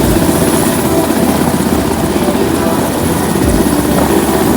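Helicopter running loud and steady, its rotor blades chopping rapidly.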